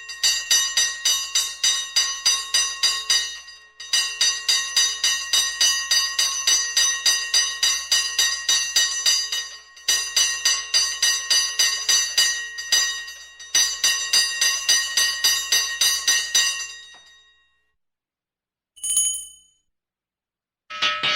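Hand fire bell rung rapidly, about four strokes a second, in several long bursts with brief pauses. The ringing dies away about seventeen seconds in, a short clang follows, and a louder bell with a different tone starts ringing near the end.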